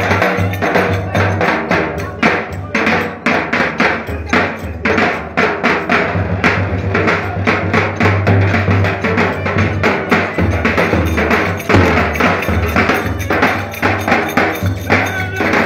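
Turkish davul drum music for köçek dancing: fast, steady bass-drum beats with rapid metallic clacking percussion and a sustained melody line over them.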